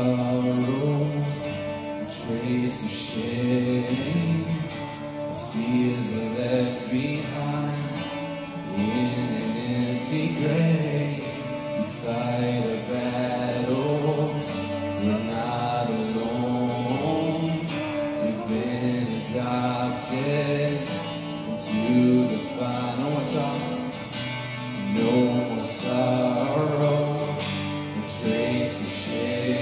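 A worship song performed live: singing over guitar accompaniment, continuous throughout.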